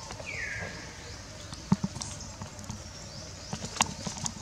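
Macaque monkeys at play: one short high squeal falling in pitch about half a second in, then a few sharp knocks and taps scattered through the rest.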